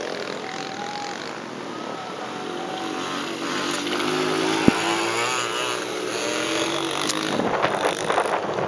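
Small junior motocross bike engines revving over the track's jumps, the engine note climbing and falling as a rider comes close. A single sharp click about halfway through.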